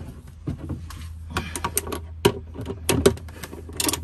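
Irregular sharp metallic clicks and knocks of a 12 mm hex socket and its bar being fitted onto a steel oil-pan drain plug, about nine in all and loudest about two and three seconds in, over a steady low hum.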